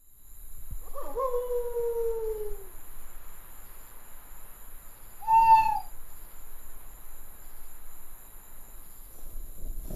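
Owl calling twice over a faint steady hiss: a long, slowly falling hoot about a second in, then a shorter, higher call about five seconds in.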